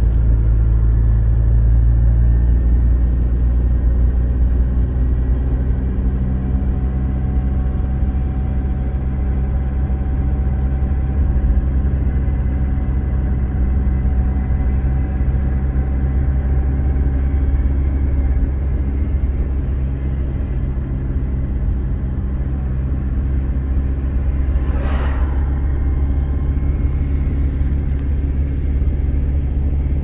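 Car driving at steady speed, heard from inside the cabin: a steady low engine and road rumble with a faint engine hum. A brief whoosh about 25 seconds in.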